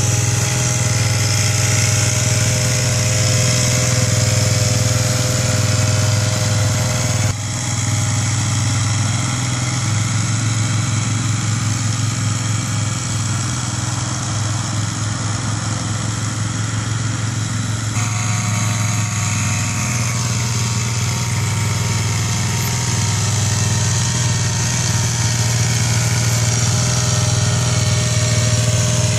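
Small engines running steadily: the spray bowser's petrol pump engine and the towing quad bike. The engine note shifts slightly about seven seconds in and again about eighteen seconds in.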